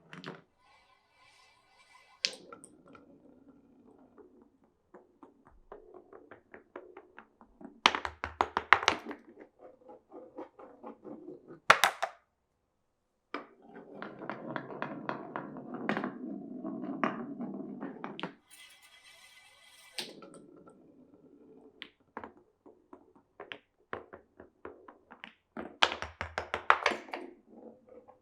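Glass marbles rolling and clattering down a wooden marble run: runs of rapid clicks and knocks, a few loud clusters of clacks, and a steady rolling rumble of about five seconds around the middle.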